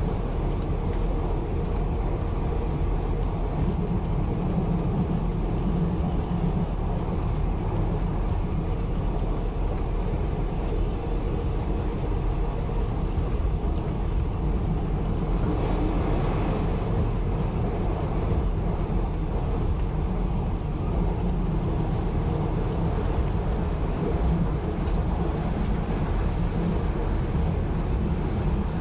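1920s CPH railmotor under way on the line, its engine and wheels on the rails making a steady running noise, with a brief brighter rush of noise about halfway through.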